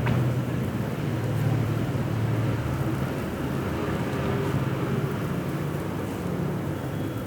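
Steady low rumble of motor traffic, with engine hum wavering slightly in pitch.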